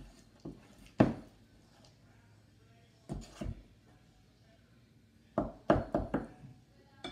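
A plastic spoon knocking against a stainless steel mixing bowl while stirring slime. The knocks come in irregular clusters: a loud one about a second in, a pair around three seconds, and a quick run of four or five near the end.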